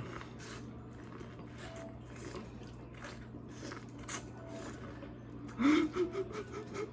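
Close-miked eating of a seafood boil: wet chewing and lip smacks, a steady run of small squishy clicks. Near the end a brief murmur of a voice, wordless, rises over it.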